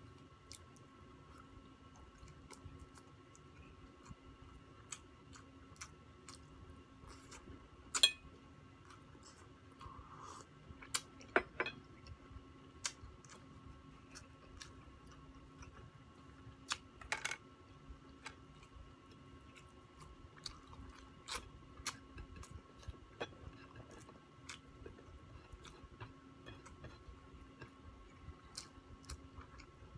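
A man chewing grilled pork barbecue and biting it off a skewer, with scattered sharp clicks, the loudest about eight, eleven and seventeen seconds in, over a faint steady hum.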